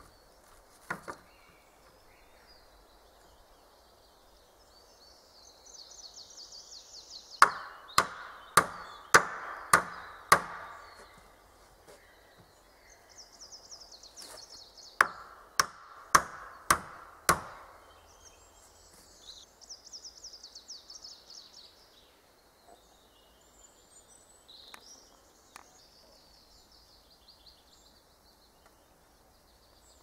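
Hammer blows on wood, two runs of five or six strokes at about one and a half a second, like nails being driven into boards, with a pair of lighter knocks about a second in. Birds chirp in the background.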